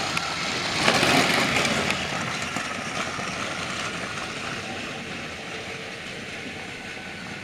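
Battery-powered TrackMaster Thomas toy train whirring along plastic track, its small motor giving a steady high whine. The sound is loudest about a second in as it passes close, then fades as it runs away.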